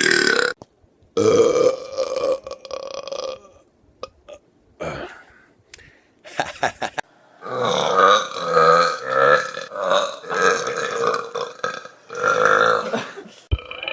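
A person belching loudly and repeatedly. There is one long drawn-out burp about a second in, a few short sounds in the middle, then a run of burps one after another through the second half.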